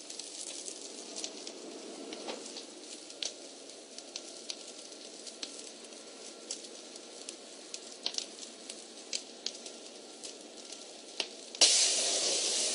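Burning house fire crackling, with irregular sharp pops over a steady rush. Near the end a much louder hiss comes in suddenly and holds.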